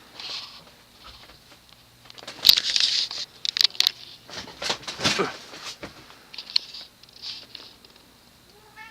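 Cast-iron ceiling fan motor starting on low speed with a faint steady hum, under louder irregular rustling and crackling noises that come in bursts, loudest in the middle.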